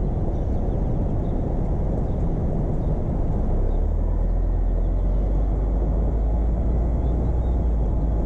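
A car driving, with a steady low rumble of road and wind noise that grows heavier about three and a half seconds in.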